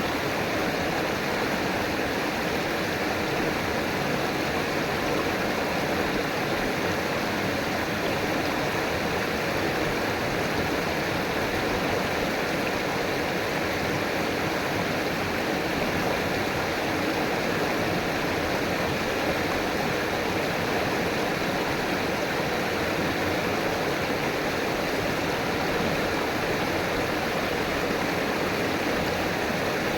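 River water flowing, a steady rushing and burbling that holds even throughout.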